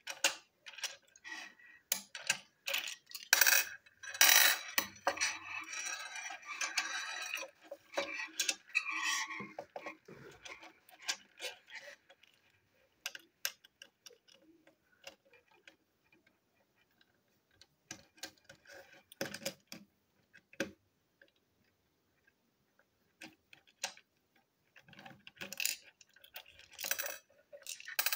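Small clicks, taps and rattles of a plastic toy train engine being taken apart by hand and with a screwdriver: a busy run of clatter at first, sparse single clicks in the middle with quiet gaps, and more clicks near the end.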